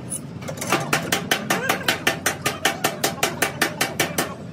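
Hammer striking the car's body metal in quick, even blows, about six a second. The blows start just under a second in and stop shortly before the end.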